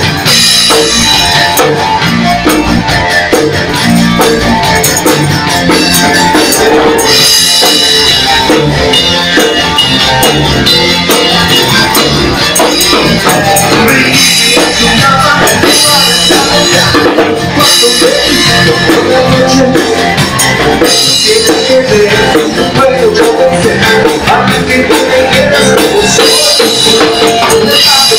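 Live dance band playing loud, with drum kit, guitar and keyboard, in an instrumental stretch of a song without singing.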